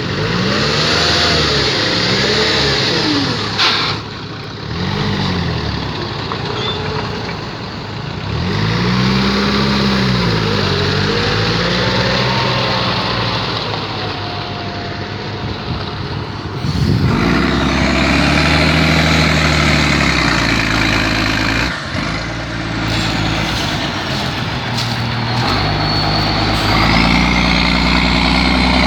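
BMC Pro 827 truck's diesel engine revving up and down again and again as it struggles through mud. From a little past halfway it settles into a steadier, lower run.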